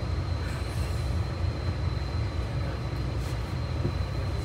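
Steady low rumble of a moving bus heard from inside the cabin, with a faint steady high whine over it.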